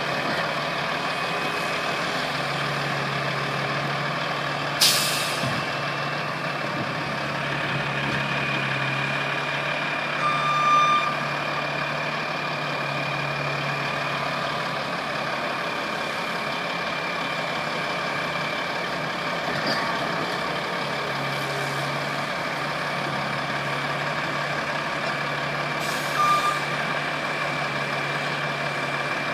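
Bobcat skid-steer loader and a dump truck running steadily at work, with a continuous high whine over the engine hum. There is a sharp bang about five seconds in, and two short beeps, one near the middle and one near the end.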